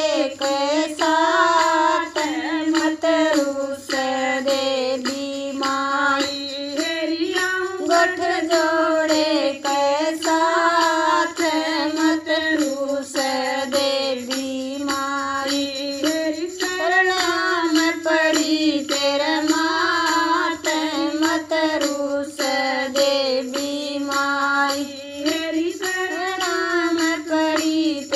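A female voice singing a Haryanvi devotional bhajan to the mother goddess, in long, unbroken melodic lines that slide up and down in pitch over a musical backing.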